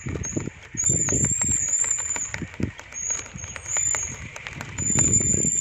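Footsteps on a paved walkway, with irregular low thumps and knocks, over a thin, high, wavering tone that comes and goes.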